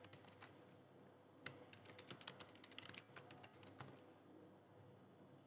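Faint keystrokes on a computer keyboard, typed in short runs with pauses between them, as a password and its confirmation are entered.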